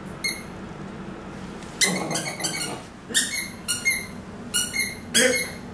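Squeaky raccoon dog toy squeaking again and again in short, high-pitched squeaks: one near the start, a quick run about two seconds in, then single squeaks every half second or so as a corgi goes for it.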